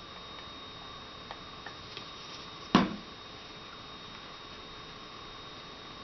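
Small items being handled on a workbench: a few faint ticks and one sharp knock about three seconds in, over a faint steady electrical whine.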